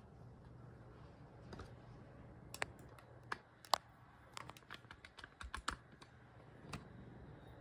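A run of irregular light clicks and taps, about a dozen spread over a few seconds, with a faint steady low hum underneath.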